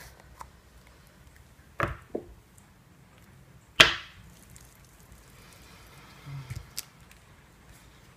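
A few sharp knocks and taps on the worktop while paint is dabbed through a plastic stencil onto a card tag: two close together about two seconds in, the loudest just before four seconds, and a lighter thud and click past six seconds.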